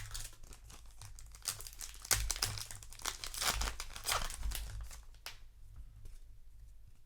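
Trading card booster pack wrapper being torn open and crinkled: a run of irregular crackles that dies down about five seconds in.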